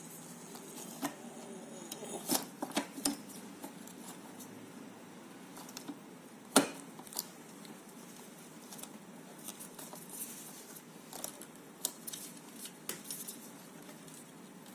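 Scattered clicks, taps and rustles of hands seating a wrapped replacement battery into a kids' electric ride-on bike's battery bay and fitting parts around it, with one sharper knock about six and a half seconds in.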